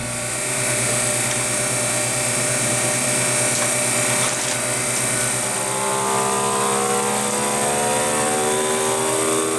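Vacuum sealer pump running steadily as it draws the air out of a bag of fries, its pitch sinking slowly in the second half as the vacuum builds. A freeze dryer hums underneath.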